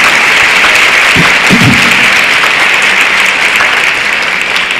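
A large seated audience applauding steadily, easing off a little near the end.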